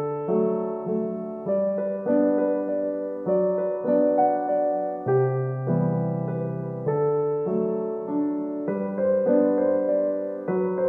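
Background piano music, with notes struck in a steady, even pulse.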